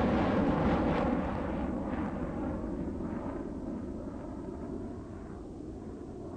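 A deep rumbling sound effect, like a cinematic boom tail, slowly fading away.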